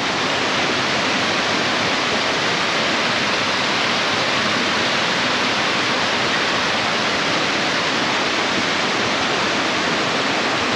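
Mountain valley stream running: a steady, even rush of flowing water at a constant level.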